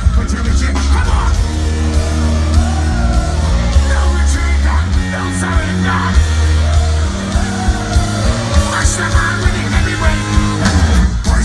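Heavy rock band playing live through a large outdoor stage PA: a deep, loud bass, distorted guitar and a vocalist singing and shouting over it.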